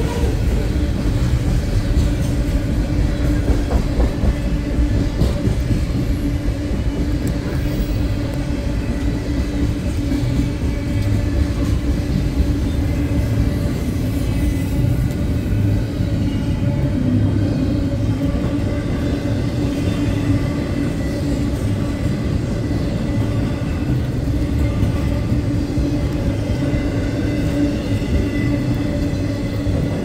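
Freight train cars rolling steadily past, a mix of boxcars and double-stack container well cars, with wheels rumbling and clacking on the rails.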